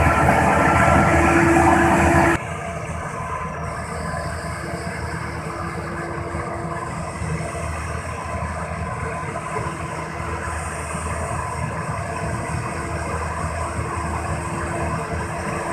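Road compactor's engine running steadily. About two seconds in the sound drops abruptly to a quieter, thinner steady drone.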